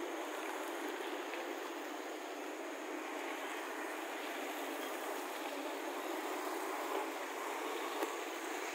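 Street traffic: motor scooters and cars passing, a steady mix of engine and tyre noise.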